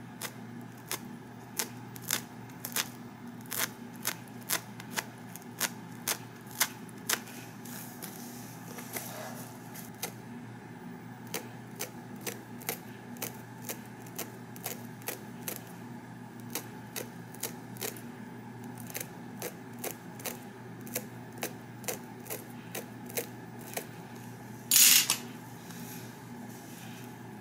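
Stainless slant-tip tweezers clicking again and again as hairs are plucked from a wig's lace frontal, about two light clicks a second, uneven. One louder, longer knock near the end, over a low steady hum.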